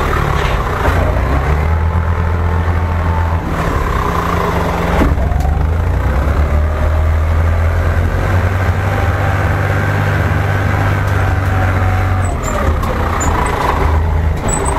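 Tractor engine running under changing load. Its low drone steps up and down in pitch and loudness every few seconds, as when driving through deep snow.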